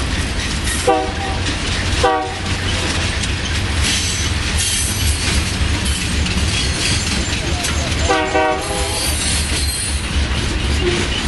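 Empty ballast hopper cars rolling past with a steady rumble and clatter of wheels on rail joints. Three short blasts of a train horn break through it: about a second in, at two seconds, and a longer one around eight seconds.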